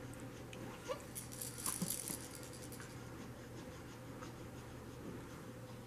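Plastic toy rings rattling briefly, between about one and two seconds in, as the baby's tethered arm tugs the cloth strip tied to the toy. The rattle sits over a steady low room hum.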